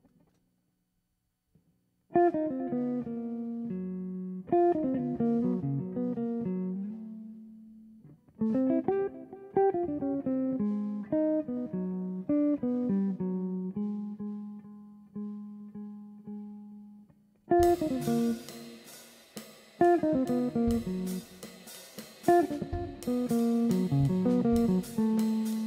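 Electric archtop guitar playing ringing jazz chords alone, each chord left to sustain and fade. About two-thirds of the way in, a drum kit joins with cymbals and kick drum under the guitar.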